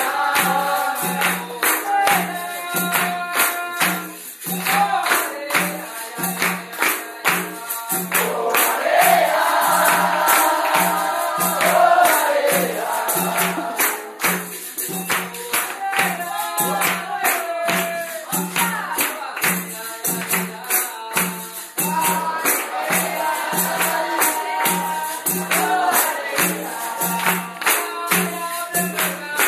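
Capoeira roda music: berimbaus and a pandeiro keeping the rhythm over a low atabaque beat about every three-quarters of a second, with hand-clapping and a group singing.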